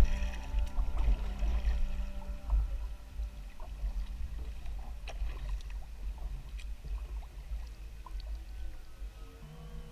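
Kayak gliding through river water, with paddle splashes and drips heard as scattered small splashes over a low rumble of water against the hull. The sound is picked up by a camera mounted on the bow deck.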